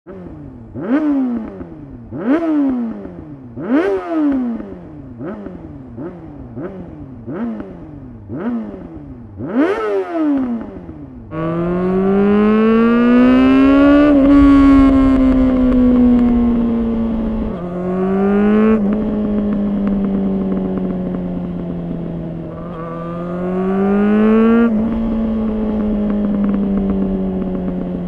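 2004 Honda CBR600RR inline-four with a LeoVince slip-on muffler and no catalytic converter. For the first ten seconds it is revved in about nine quick blips, each rising sharply in pitch and falling back. From about 11 s in it is ridden on the road, pulling up in revs, dropping at upshifts and cruising steadily in between.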